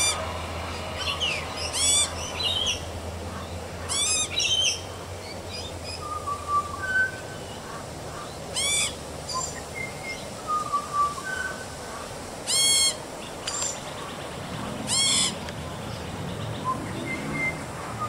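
Baby Australian magpie yelling: about six loud, harsh, squawking calls a few seconds apart, the begging calls of a juvenile magpie, with softer short whistled notes in between.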